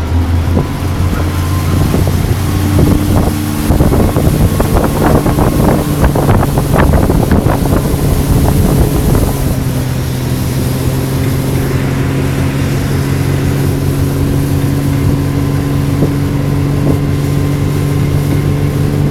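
Motorboat engine pulling a rider up out of the water, running hard at first over churning water and wind on the microphone, then settling into a steady cruise about halfway through.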